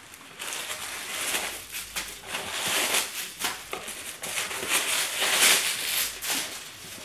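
Tissue paper crinkling and rustling as it is pulled out of a new leather clutch, an irregular run of crackly rustles that is loudest a little past halfway.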